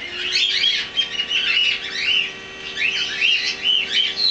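Baby Senegal parrot chirping and squeaking in quick, high, bending calls, in two bouts with a short lull about halfway.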